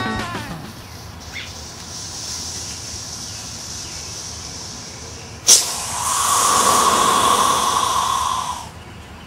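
The napkin-and-KNSU fuse of a homemade 1/2-inch PVC rocket motor sputters faintly. About five and a half seconds in there is a sharp pop as motor pressure blows the nozzle off. The potassium-nitrate/sugar (KNSU) propellant then burns out of the tube with a loud, steady hiss for about three seconds and stops suddenly.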